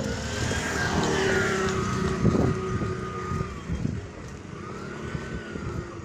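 Street traffic: a motor vehicle passes close by, its engine and tyre noise swelling about a second in and then fading as its pitch drops, with more engines running in the street behind.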